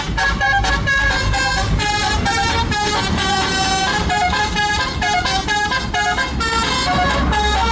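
Tour bus telolet horn, a set of electric air horns, playing a quick melody of short changing notes without a break. A low rumble runs underneath and grows louder near the end.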